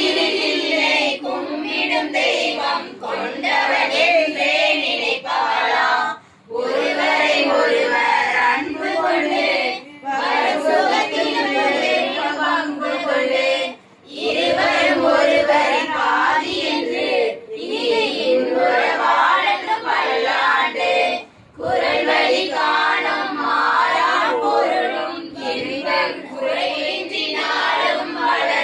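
A group of women singing together in long phrases, with short breaks between phrases.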